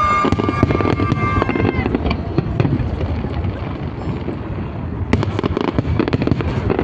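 Fireworks going off in a continuous low crackling rumble, with a run of sharp cracks and pops about five seconds in. For the first couple of seconds a high, steady whistling tone rides over them.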